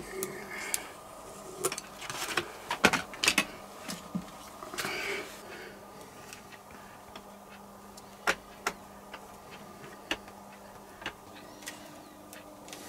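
Hand work at a cobbler's wooden workbench: scattered clicks, taps and brief scrapes of tools and material, busiest in the first five seconds and sparser after, over a faint steady hum.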